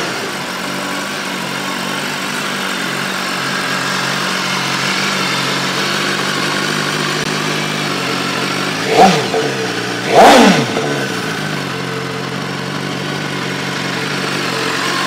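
BMW S1000RR's 999 cc inline-four engine idling steadily, blipped twice about nine and ten seconds in. Each time the revs rise and fall quickly, the second blip the louder, before it settles back to idle.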